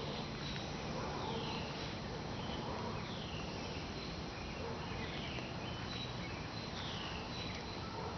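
Recorded hummingbird calls played through a speaker: a short, high, falling chirp repeated at an even pace, about every two seconds, over steady background noise.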